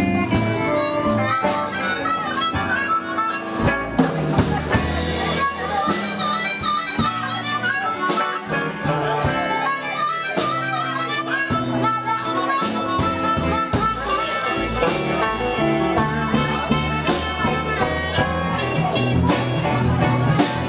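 Blues harmonica cupped against a vocal microphone, played as a lead solo over a live band of electric guitar, upright bass and drums keeping a steady beat.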